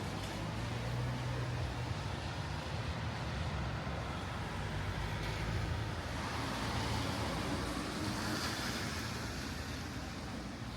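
Road traffic on a rain-wet city street: a car engine running low, with tyre hiss that swells and fades as a vehicle passes about two-thirds of the way through.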